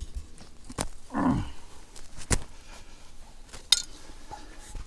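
A short, low grunt that falls in pitch, about a second in, along with a few sharp knocks and rustles of someone settling down and handling gear.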